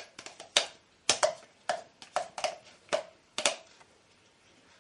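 Plastic yogurt tub knocked against the rim of a ceramic mixing bowl to empty it: a dozen or so sharp, irregular taps, each with a short ring, stopping about three and a half seconds in.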